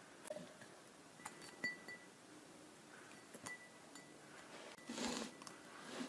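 Three light taps on an empty drinking glass as tea bags are lowered into it, each leaving a brief glassy ring, the middle one the loudest. A soft rustle follows about five seconds in.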